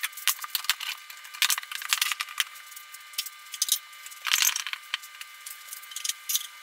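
Irregular light clicks and clinks, with a short denser rattle about four seconds in.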